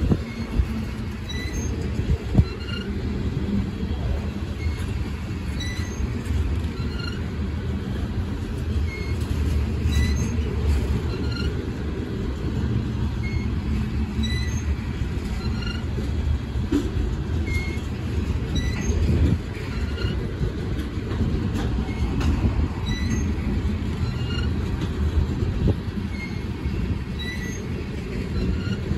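Coal gondola cars of a freight train rolling past: a steady low rumble of steel wheels on rail, with a few sharp knocks from the running gear.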